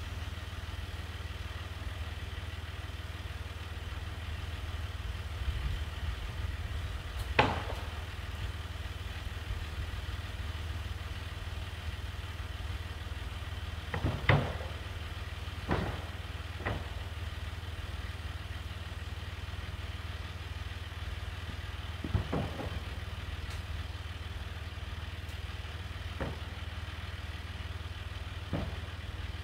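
Farm tractor engine idling steadily, with sharp wooden knocks now and then as sawn boards are laid onto a lumber stack.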